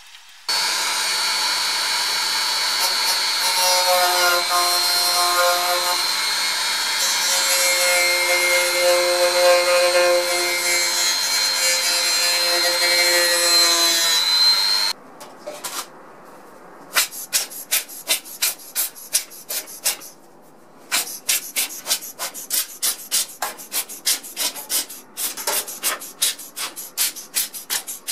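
A small rotary tool runs with a steady high whine for about fourteen seconds. Its polishing wheel is grinding the carbon-fouled ignition plug of a kerosene fan heater, and a lower tone comes and goes twice as the wheel bears on the plug. The tool cuts off suddenly, and quick back-and-forth rubbing strokes follow in three runs, about four or five a second.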